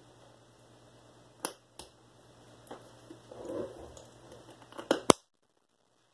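A glass lid being fitted and clipped onto a glass jar of honey: light clicks and knocks of glass and a brief handling rustle, then two sharp clicks near the end before the sound cuts off abruptly.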